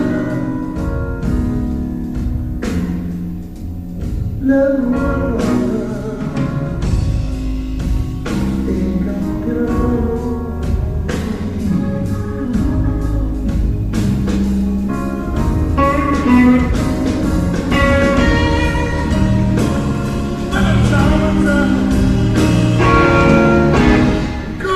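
Live electric blues band playing: electric guitar leads over bass and drums, with singing.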